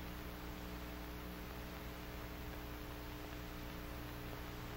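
Quiet, steady electrical hum with a faint even hiss: the background noise of an old film soundtrack, with no other sound.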